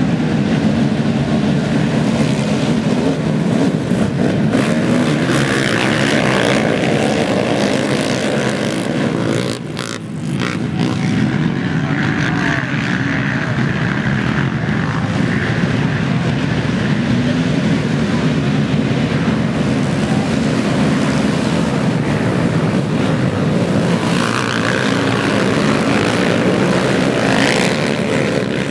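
Several racing quad ATV engines running hard together, a loud steady din that dips briefly about ten seconds in and swells again as the quads come near.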